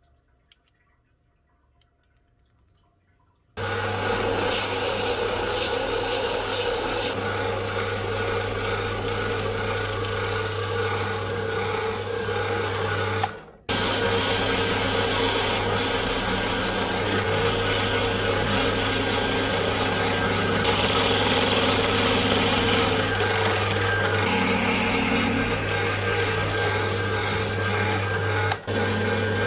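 Drill press running and boring a large hole into a plywood block with a Forstner-type bit: a steady motor hum under a rasping cutting noise. It starts abruptly after a few seconds of near silence and drops out briefly about halfway through and again near the end.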